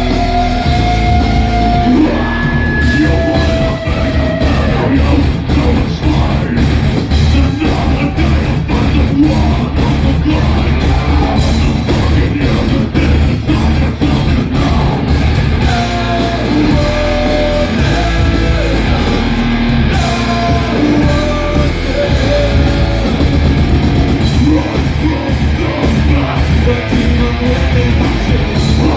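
Heavy metal band playing live: electric guitars over fast, dense drumming, with vocals.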